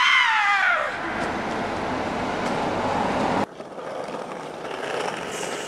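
A person's drawn-out call falling in pitch, then city street noise with traffic that cuts off abruptly about three and a half seconds in, leaving a fainter hiss.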